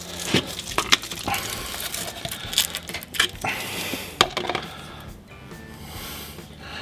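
Scattered sharp metallic clinks and knocks from the sway bar bush, its bracket and tools being handled, with faint background music under them; the clinks die away about five seconds in.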